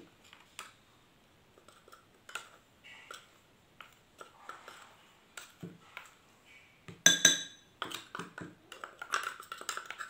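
A metal spoon scraping ground spices out of a spice grinder's steel cup into a porcelain bowl. Scattered light scrapes and clicks, a loud ringing clink about seven seconds in, and a quicker run of scraping near the end.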